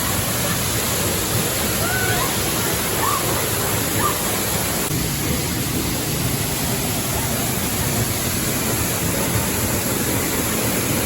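Waterfall pouring with a steady, unbroken rush of water.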